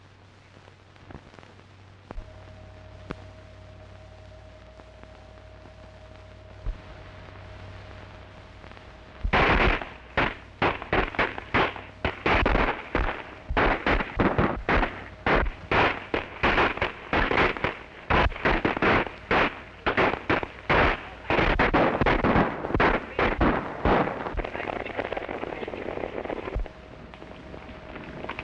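A gunfight: many sharp gunshots in quick succession, several a second. They start about a third of the way in, keep going for some fifteen seconds, and then thin into a softer rushing noise.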